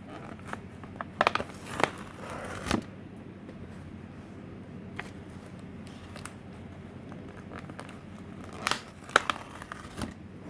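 Thin clear Lexan (polycarbonate) car body shell crinkling and crackling as it is handled. There are two clusters of sharp crackles, about a second in and near the end.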